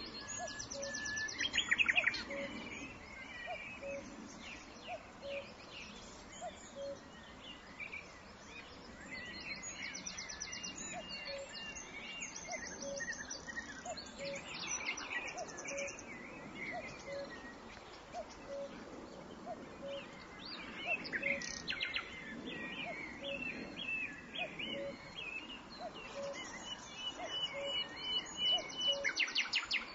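A nightingale singing varied phrases of rapid trills, whistles and buzzy notes, loudest about two seconds in and again in the last third. Under it, faint short notes repeat evenly about every 0.7 seconds.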